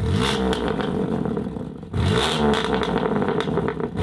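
BMW M2's twin-turbo straight-six, breathing through a full aftermarket exhaust system, revved in throttle blips: the pitch climbs at the start and again about two seconds in, with a third rev beginning at the end.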